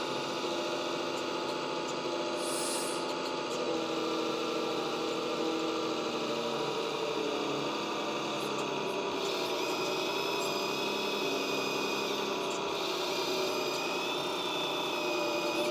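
Electric oil pumps of a 1/14 scale RC hydraulic excavator running with a steady hum and whine. The pitch wavers up and down as the hydraulic functions are worked, and a higher whine joins in about nine seconds in.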